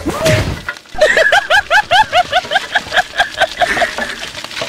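Edited-in comedy sound effect: a whoosh, then a rapid run of squeaky, rising chirps, about five a second, that keeps going until near the end.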